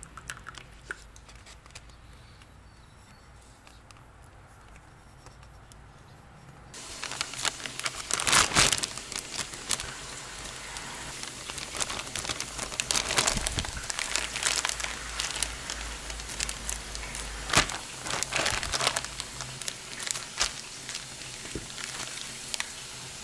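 Clear plastic zip-lock bag of marinated chicken crinkling and rustling as it is handled and opened, with many sharp crackles. It starts suddenly about seven seconds in, after a quieter stretch with a few light clicks.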